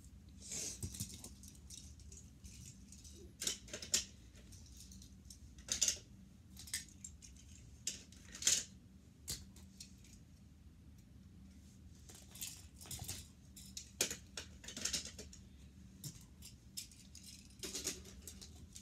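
Hot Wheels die-cast toy cars clicking and rattling against each other and a plastic toy parking garage as they are handled and set into its levels, in irregular scattered clicks.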